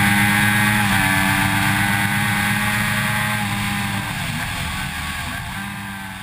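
2006 Triumph Daytona 675's three-cylinder engine running at steady high revs at track speed, with wind and tyre noise. There is a brief dip in the engine note about a second in and another around four seconds in, and the whole sound gradually fades away toward the end.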